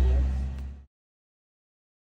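A steady low hum with a faint fading tone, then the sound cuts off abruptly to dead silence a little under a second in.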